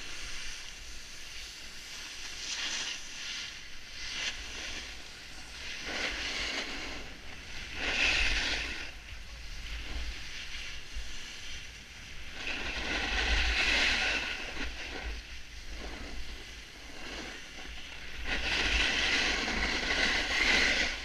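Wind rumbling on a helmet-mounted camera's microphone during a downhill ski-slope descent, with several swells of hissing as edges scrape across packed snow in turns, the loudest near the end.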